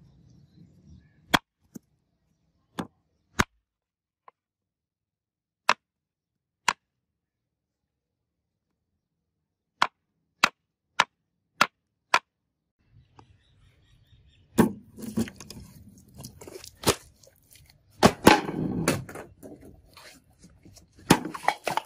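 Knife blade chopping through a melon onto a wooden cutting board: about a dozen sharp single chops with silence between them. Then, in the last third, a busier run of louder hits and crackling.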